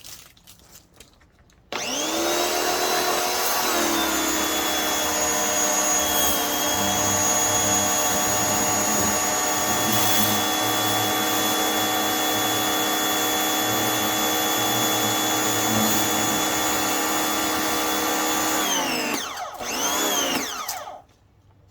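Craftsman pressure washer's motor starting, rising to a steady whining run for about 17 seconds, then winding down, running again briefly and stopping.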